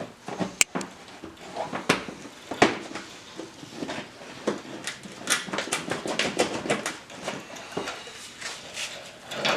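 Hand work under a car's front fender: scattered clicks and knocks of tools and parts, with a quicker run of clicks about five to six and a half seconds in.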